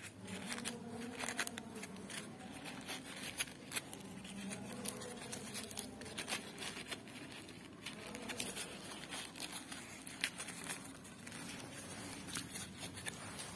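Paper rustling and crinkling in irregular short bursts as hands handle and wrap paper petals around a paper tulip, with small taps and clicks.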